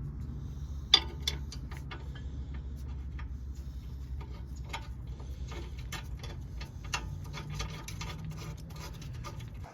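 Metal-on-metal tapping as a screwdriver is banged against the split collar of a Honda Civic's front axle nut to stake it into the groove of the new CV axle shaft. A run of irregular light taps, the loudest about a second in.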